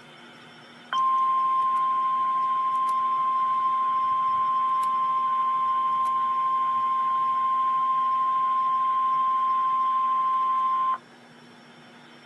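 Emergency alert tone for a weather warning, likely NOAA Weather Radio's 1050 Hz warning alarm tone: one steady high beep starts about a second in, is held for about ten seconds, then cuts off sharply over a faint radio hiss. The tone signals that a warning broadcast, here a severe thunderstorm warning, is about to follow.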